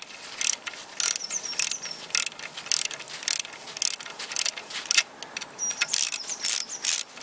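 Ratchet of a torque wrench with a 10 mm socket clicking in short bursts, about two a second, as the handle is swung back and forth to run down the bolts of a timing chain tensioner.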